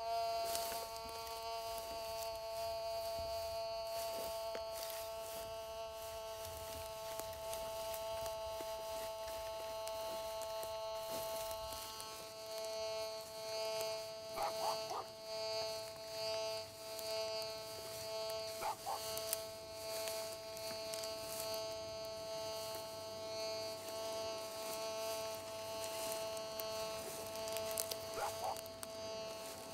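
Metal detector giving a steady buzzing tone, broken by a few short blips: a quick cluster about halfway through and two single ones later.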